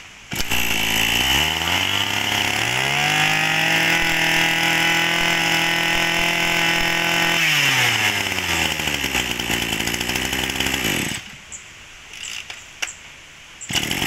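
Maruyama 23 cc two-stroke brush cutter engine catching on the pull-start and idling, then revved up to a steady high speed for about five seconds and let back down to idle. It stops about eleven seconds in and runs again near the end.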